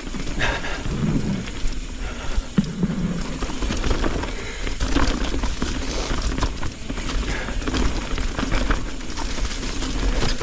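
Mountain bike descending a rough leaf-covered forest trail: tyres rolling over leaves, rocks and roots with many sharp knocks and rattles from the bike, over a steady wind rumble on the camera microphone, and a few hard breaths from the rider.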